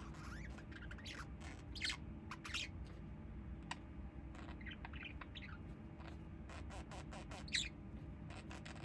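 A small bird calling in short chirps and squeaks, several sweeping sharply upward in pitch, the loudest about two-thirds of the way through, over a steady low hum.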